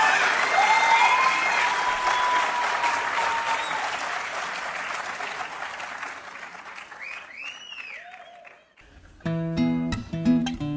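Audience applause with some cheering, dying away gradually over about eight seconds. About nine seconds in, an acoustic guitar starts strumming chords.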